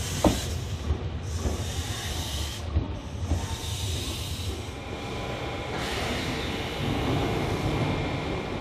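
Semboku Rapid Railway electric commuter train at a station platform: steady running and rail rumble with a hiss of air, and a sharp click just after the start.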